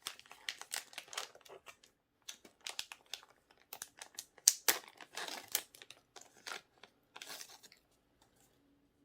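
Plastic wrapping crinkling and tearing in irregular bursts as a packaged air freshener is opened by hand, with the loudest rip about halfway through; the crackling stops shortly before the end.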